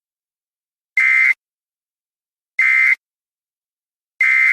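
EAS/SAME end-of-message data bursts: three short, harsh digital tone bursts about a second and a half apart, signalling the end of the alert.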